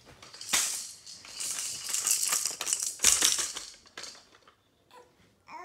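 A toy rattle shaken in several bursts for about three and a half seconds, a hissy, high-pitched shaking with sharp clicks, loudest near the start and again about three seconds in.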